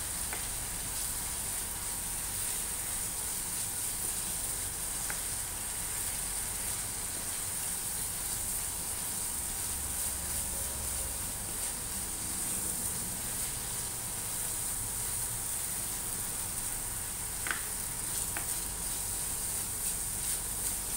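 Corned beef sizzling with a steady hiss in a nonstick frying pan as its remaining liquid cooks off, stirred with a spatula, with a few faint clicks as the spatula knocks the pan.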